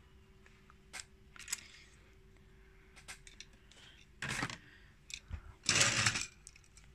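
Hands handling a small plastic toy locomotive: a few light clicks, then two short rustling scrapes about four and six seconds in.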